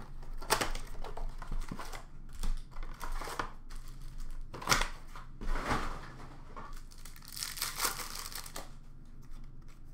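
Hands tearing open a cardboard blaster box of Upper Deck hockey cards and ripping and crinkling the card pack wrappers. Irregular rustling with a few sharp rips, the crinkling thickest in the second half.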